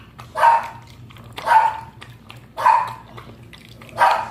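A dog barking four times at an even pace, about one bark every second and a bit.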